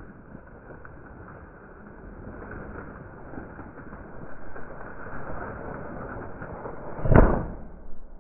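Steady rustling, then a single loud shotgun shot about seven seconds in.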